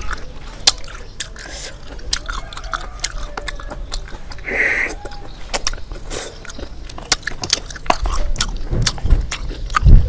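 Close-miked eating of fried snails: sharp clicks of a knife against snail shells mixed with wet chewing and biting. A brief noisy burst comes about halfway, and low thumps near the end are the loudest sound.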